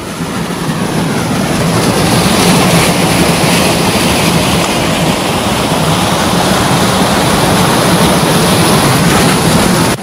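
Monsoon stream rushing and cascading between rocks at a small waterfall, close to the microphone. It grows louder over the first couple of seconds, then holds as a steady rush of water.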